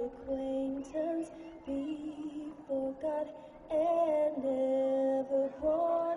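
Slow music with a female voice singing a melody of long held notes that step up and down in pitch.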